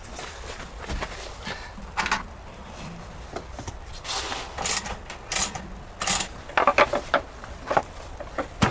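Irregular rustling, light knocks and clatter of things being handled, with a few sharp clicks and louder rustles in the middle and latter half.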